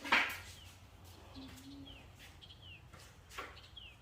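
A small bird chirping repeatedly: short, high, falling chirps about once a second. Right at the start there is a brief, louder noisy rush or scrape, with a few faint ticks later.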